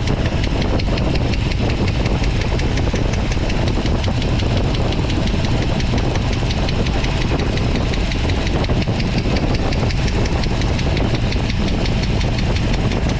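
AMC 360 V8 idling with its valve cover off, a steady lifter tap ticking through the engine's run. The tap comes from one faulty rocker or lifter in the valvetrain, and pressing a palm on the rockers is being used to find which one.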